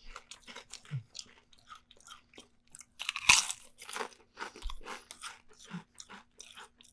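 Potato chips being crunched and chewed in the mouth: a rapid run of crisp cracks and chews, loudest about three seconds in.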